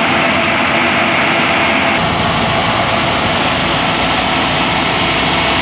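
Yanmar AW6120 rice combine harvester running, a loud steady engine and machinery drone, with an abrupt change in tone and more low rumble about two seconds in.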